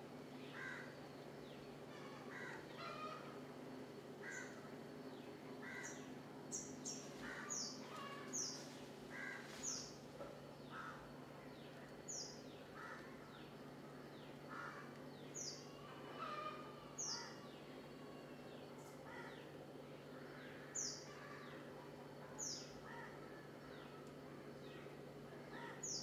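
Birds calling: short, sharp high chirps that fall in pitch, repeated every second or two, mixed with lower call notes, over a steady low hum.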